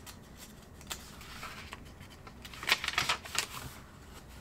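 Pages of a small Moleskin sketchbook being turned by hand: a light tap about a second in, then a quick cluster of crisp paper flicks and rustles a little past the middle.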